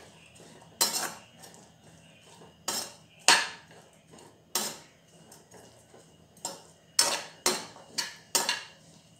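Steel spatula scraping and clanking against a non-stick kadai while stirring chopped cabbage. It makes about nine sharp, uneven strokes, which come faster in the last few seconds.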